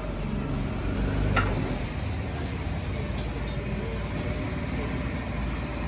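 Steady low street rumble with one sharp metal clink about one and a half seconds in and a few fainter clinks around three seconds, from a serving ladle and metal bowls.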